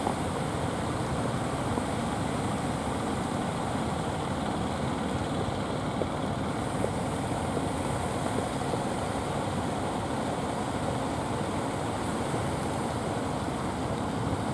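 Steady rush of breaking surf and wind on the microphone, an even noise with no clear engine note standing out.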